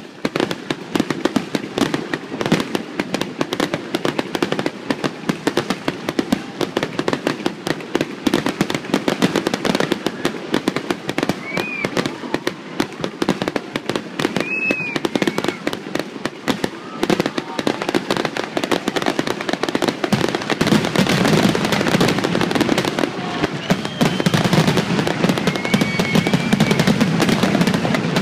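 Fireworks display: a rapid, continuous barrage of bangs and crackling, growing louder about two-thirds of the way in.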